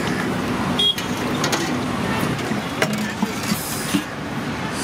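Steady street traffic noise with a few short vehicle horn toots, and several sharp clinks of a ladle against a steel pot.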